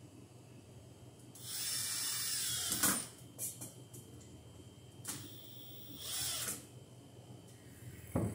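Cordless drill driving screws into the wall: one run of about a second and a half, a few clicks, then a shorter run about six seconds in. A thump near the end.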